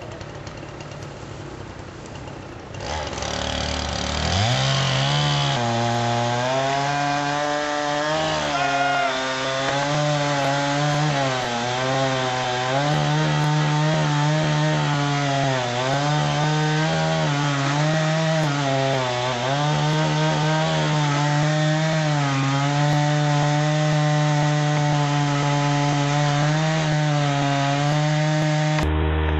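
Chainsaw starts up loud about three seconds in, revs up, then runs through wood, its engine pitch dipping and recovering again and again as the chain bites under load.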